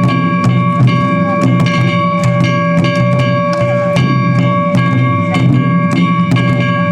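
Japanese festival drum music: taiko drums struck several times a second in a steady rhythm, with a held high ringing tone over the beat.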